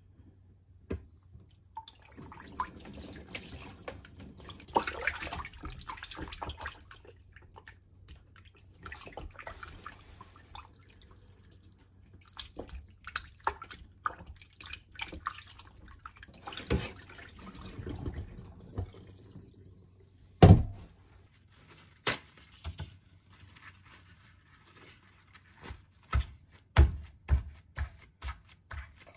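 Kitchen work: water splashing and dripping in a sink, with scattered clinks and knocks of kitchenware, the loudest a single sharp knock about two-thirds of the way through.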